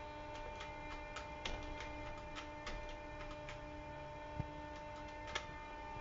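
Steady electrical hum inside a Dover elevator cab, with faint irregular ticking throughout and two sharper clicks about four and five seconds in.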